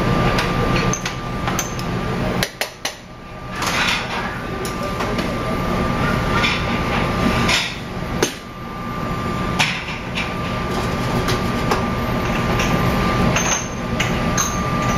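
Irregular knocks and clicks of a metal spoon against a pan as grits are spooned out onto a plate, over a steady kitchen hum.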